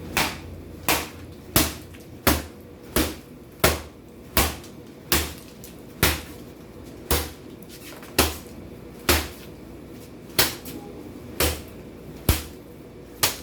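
Repeated hard blows smashing a plastic alarm clock: about sixteen sharp cracking knocks, each with a dull thud, about 0.7 s apart at first and slowing to about one a second.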